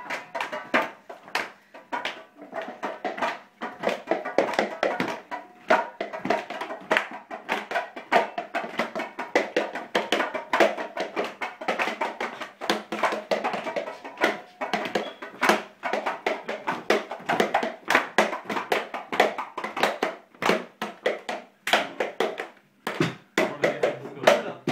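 Lively group music-making: fast, steady clapping and percussive strikes with voices singing along, echoing in a small room.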